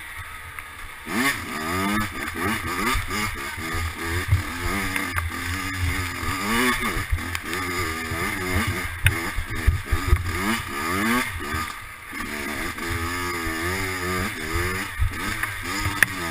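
Dirt bike engine, its top end freshly rebuilt, revving up and dropping back over and over as the rider works the throttle, with frequent low knocks.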